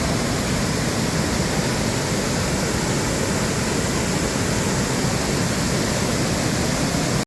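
Waterfall: a steady, loud rush of falling water with a deep low rumble. It cuts off suddenly at the end.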